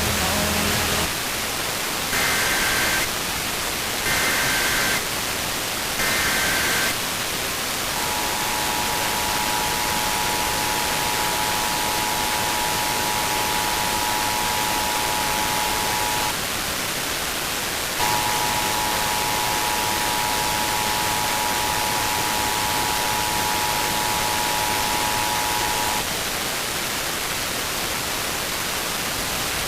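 Emergency Alert System tones over a steady static hiss. Three short warbling data bursts, the SAME header, come about two seconds apart. Then the two-tone attention signal sounds for about eight seconds, and after a short break it sounds for another eight seconds.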